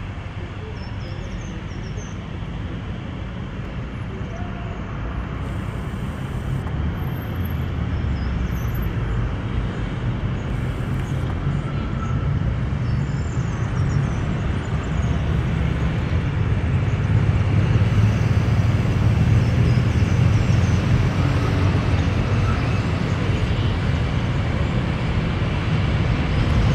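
Articulated low-floor trams rolling past amid street traffic: a steady low rumble and traffic noise that grows louder as a tram draws close, loudest in the second half.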